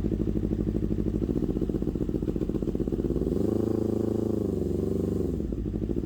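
Carbureted Honda motorcycle engine running: it idles steadily, then the throttle is opened about three seconds in and held at higher revs for about two seconds before it drops back.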